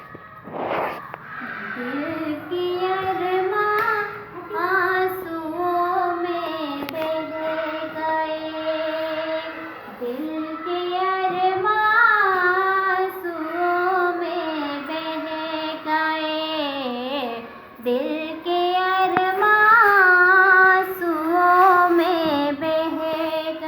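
A woman's solo voice singing a slow Hindi film-song melody with no accompaniment, in long held notes with a wavering vibrato and short breaths between phrases.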